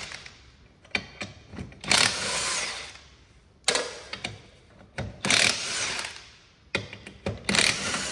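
Impact wrench run in a series of short bursts, each about half a second to a second long, spinning the lug nuts off a utility vehicle's wheel.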